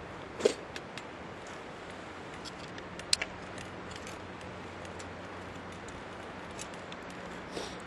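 Steady rush of a clear mountain stream, with a campfire giving three sharp pops: about half a second in, about three seconds in and near the end.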